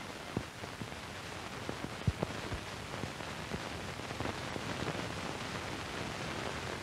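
Steady hiss of an old film soundtrack, with a few faint, scattered clicks.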